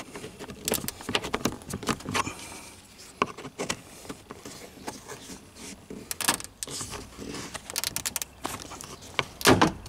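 Hand work on a car's trunk trim panel and its fasteners: irregular clicks, clinks and rattles, with a louder knock near the end.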